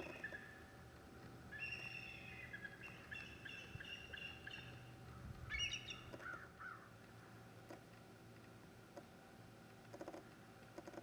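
Eagles calling: faint bursts of short, high, piping chirps repeated over the first six or so seconds, the last burst ending in a few falling notes.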